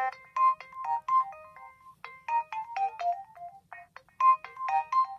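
A Nokia 216 ringtone playing through a Nokia 7100 Supernova's loudspeaker: a quick melody of short, bright synthesized notes, with a brief pause a little under four seconds in.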